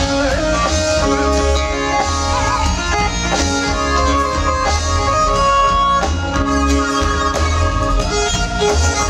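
Live band playing: a strong electric bass line and drums under a sustained lead melody whose held notes waver in pitch.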